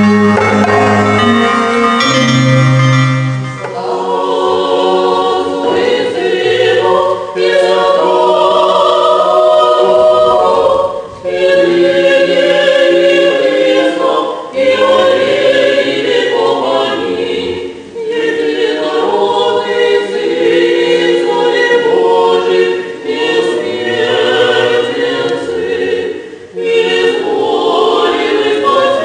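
Orthodox church choir singing without accompaniment, in long sustained phrases with short breaks between them.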